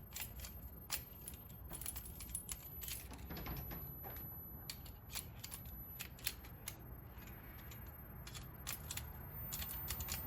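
Light, irregular metallic clicks and scrapes from a valve spring compressor being worked on an engine's valve spring to free the valve keepers.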